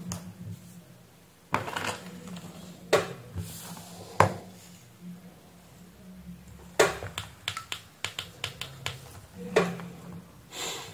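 Handling noise as multimeter test probes are pressed onto the leads of a small electrolytic capacitor: scattered clicks and taps, with a quick run of small clicks about two-thirds of the way in, over a faint low hum.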